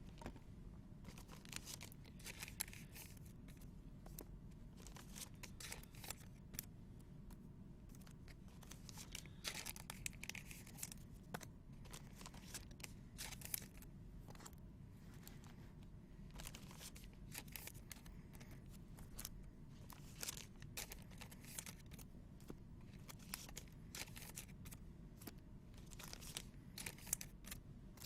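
Trading card pack wrappers being torn open and crinkled, with the small clicks and slides of cards being handled and flipped through. The crackles come in short irregular spells.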